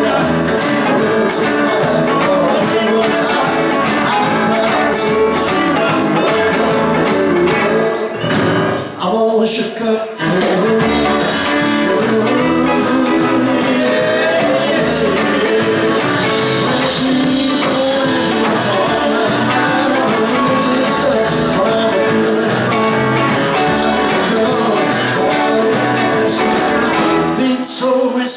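Live rock and roll band playing: electric and acoustic guitars, bass, keyboard and drums, with a man singing. The band briefly stops twice, about eight and ten seconds in, then plays on.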